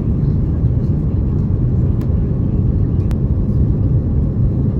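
Steady low rumble inside the cabin of an Airbus A330-900neo airliner on final approach: engine and airflow noise with the landing gear down and flaps extended. Two faint ticks come about two and three seconds in.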